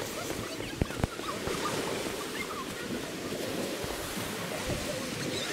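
Baltic Sea surf washing onto a sandy beach, a steady rush, with wind on the microphone. Two sharp knocks about a second in.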